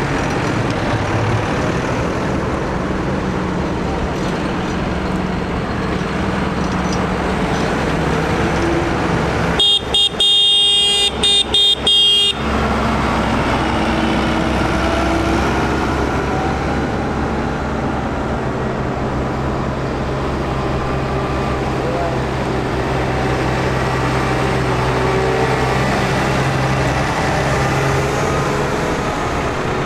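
Modern farm tractors' diesel engines running steadily as a convoy drives past. About ten seconds in, a vehicle horn sounds for about three seconds, broken by a few short gaps, louder than the engines.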